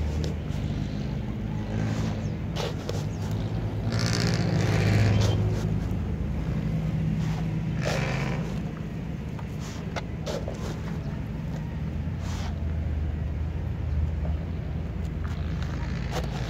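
A red plastic bottle cut into a scoop digging into loose potting soil in a plastic basin, short scrapes every couple of seconds as soil is scooped and poured. Under it, a steady low rumble of road traffic.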